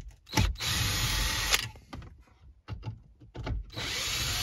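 Bauer cordless drill-driver with a Torx bit running in two short spells of about a second each, one about half a second in and one near the end, backing out screws from a dashboard trim panel. Short clicks and taps come between the runs.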